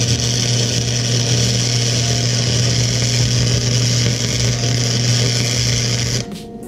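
MIG welder arc laying a continuous bead to fill a crack in an exhaust manifold: a steady hum with a hiss over it that stops abruptly about six seconds in.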